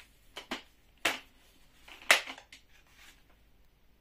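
Sharp clicks and clacks of an AK-style rifle's folding stock and fittings being worked by hand. A quick pair comes about half a second in, a louder clack about a second in, and the loudest about two seconds in.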